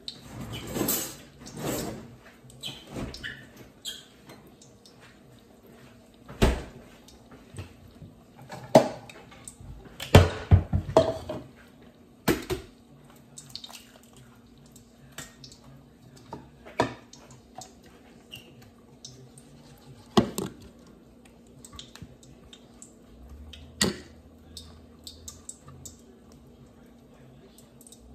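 Kitchen handling noises while lumpia are filled and rolled at the counter: irregular sharp knocks and clatters of dishes and utensils, with small taps and rustles between them, over a faint steady hum.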